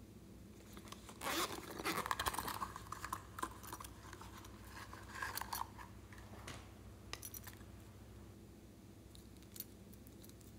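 Hands handling a zippered pencil case and small cosmetics. About a second in there is a burst of scraping and rustling that lasts a second or so, a shorter one near the middle, and then a few scattered light clicks of plastic and glass.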